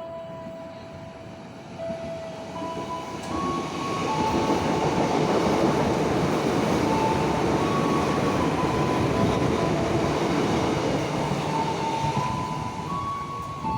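A KAI Commuter electric train passing close by, its rumble and wheel noise building a few seconds in, staying loud and easing near the end. Over it a simple melody of held, stepping notes plays throughout.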